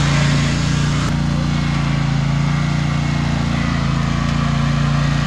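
A small engine running steadily at a constant speed, with one sharp click about a second in.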